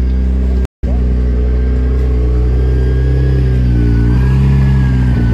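Engine of a tuned car of about 1200 horsepower running at idle, a deep steady note whose pitch dips slightly and comes back about halfway through. The sound cuts out for a moment under a second in.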